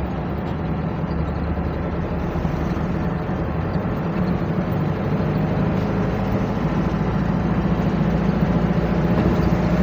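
Engine and road noise of a moving vehicle heard from inside its cabin, a steady low hum that grows slightly louder in the second half.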